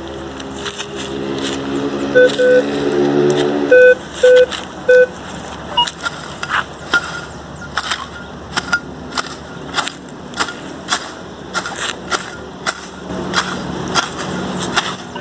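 Minelab Vanquish 440 metal detector giving several short beeps, signalling a metal target in the ground. Then a hand digging tool chops into grassy soil again and again, about two strikes a second.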